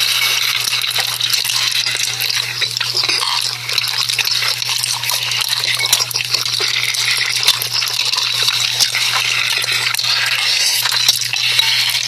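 Audio of an ASMR noodle video playing: wet, liquid, stirring-like noises with many small crackling clicks, over a steady low hum.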